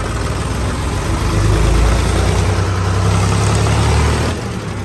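Ford 3600 tractor's three-cylinder engine running as the tractor is driven. The engine gets louder about a second in and eases back near the end.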